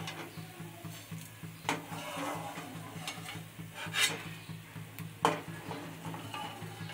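Metal slotted spoon scraping and clinking against a plate as fried okra is pushed off it: a few sharp clinks spread over several seconds, with a steady low hum underneath.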